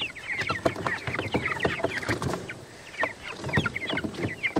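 Young chickens peeping: many short, rapid chirps, each dipping slightly in pitch, mixed with scattered knocks and rattles from handling.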